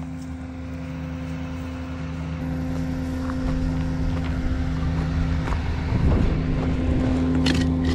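Duramax diesel engine of a wrecker tow truck idling steadily, getting gradually louder.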